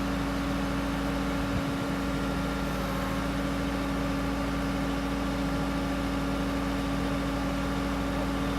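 Backhoe engine idling steadily.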